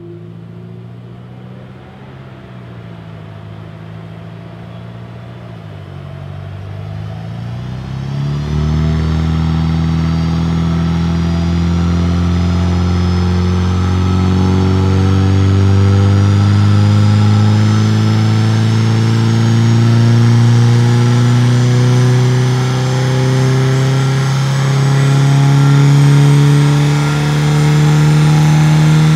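A Mercedes-Benz W205 C200's turbocharged four-cylinder petrol engine, Stage 2 tuned with an Armytrix downpipe and exhaust, running under load on a chassis dynamometer. For the first several seconds it runs at low revs with the pitch dipping twice. About eight seconds in it goes to full throttle and pulls steadily, its note rising slowly with the revs toward 5000 rpm.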